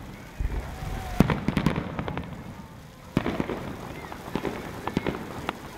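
Aerial fireworks going off: a sharp bang about a second in followed by a quick run of crackling pops, then another bang about three seconds in with scattered pops after it.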